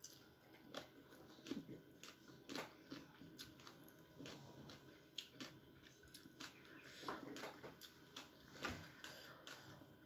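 Faint eating sounds: a person chewing and sucking up rice noodles and som tam by hand, with irregular soft mouth clicks and smacks.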